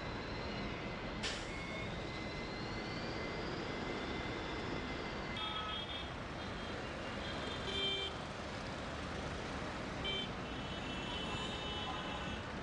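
Street traffic noise, steady throughout, with vehicle horns sounding several times: twice in the middle and a longer spell near the end.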